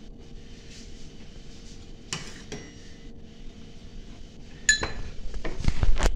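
Dishes and cutlery clinking: a couple of light clinks about two seconds in, then a sharper ringing clink followed by a run of low knocks and bumps as a plate is handled on the counter near the end.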